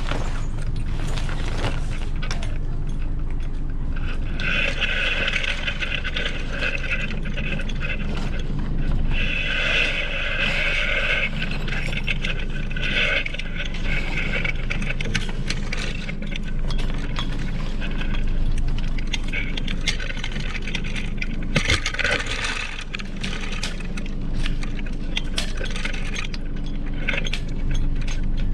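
Small metallic clinks and scrapes of a Hobie Cat 16's sail and mast hardware being handled as the sail is taken down, with two longer rasping stretches about four and nine seconds in, over a steady low hum.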